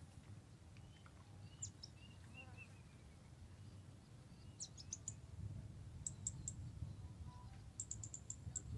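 A small bird chirping in quick runs of short, high notes, over a low, steady background rumble.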